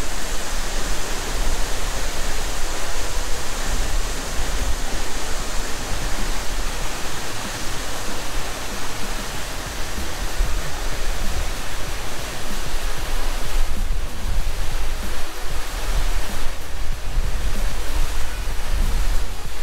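Steady rush of a tall waterfall, falling water making a dense, even noise with a deep rumble underneath.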